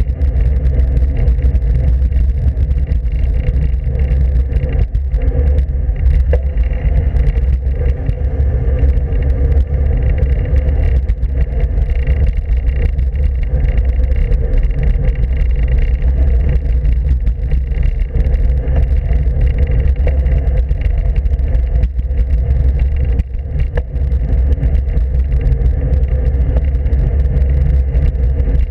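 Steady wind rush and road noise picked up by a camera mounted on the handlebars of a moving road bike, heaviest as a low rumble.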